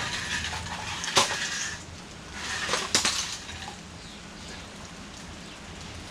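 Rustling handling noise with two sharp knocks about a second and a half apart, then a quieter stretch.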